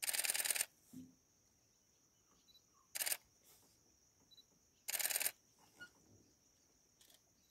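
Bursts of rapid-fire camera shutter clicks from DSLRs in continuous shooting: three short bursts, the first at the very start, then about three seconds in and about five seconds in.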